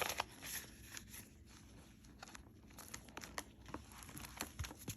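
Faint rustling and crinkling of paper bills and cash envelopes being handled, with scattered light clicks.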